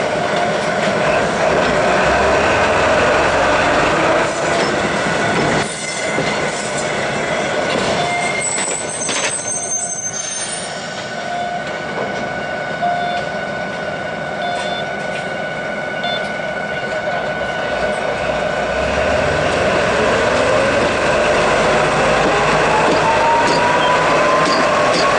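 Small diesel shunting locomotive of Taiheiyo Cement running close by with a steady whine, with a sharp clank about six seconds in. Over the last few seconds a whine rises in pitch as it gets moving again.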